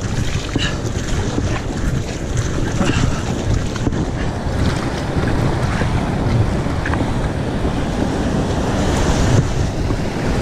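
Ocean surf surging and breaking around a kayak coming in through the shore break, with heavy wind buffeting on the microphone. The rushing is loud and continuous, without a let-up.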